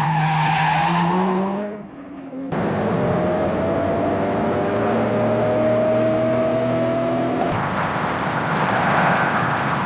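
A sequence of car sound effects: tyres squealing with a car engine under them, the pitch slowly rising through each long skid. The sound cuts abruptly to a new skid about two and a half seconds in, and changes suddenly to a rougher, noisy rush near the end.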